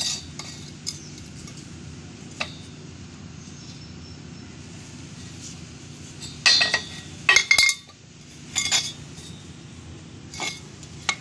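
Galvanized iron pipe and fittings clinking and knocking against a tiled floor as they are handled and set down. A few light clinks come first, then a cluster of louder metallic knocks from about six to nine seconds in, and two more near the end.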